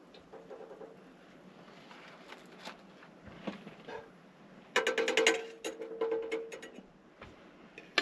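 Metal fork clinking against a metal cooking pot while fried potatoes are lifted out of the oil. About five seconds in comes a quick run of clinks with a ringing tone that lasts about two seconds.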